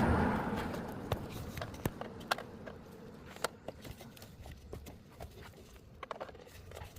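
Irregular clicks and knocks of hard plastic and tools as the air filter box and its cover are worked loose in the engine bay, with a short scraping rush at the very start.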